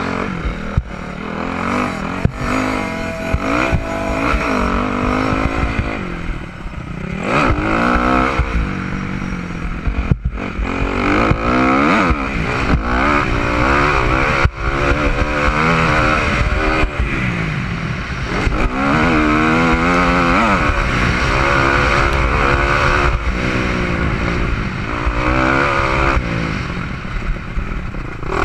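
Motocross bike engine racing on a dirt track, its pitch rising and falling over and over as the throttle is opened and closed and the gears change. Occasional clatter and knocks sound over it.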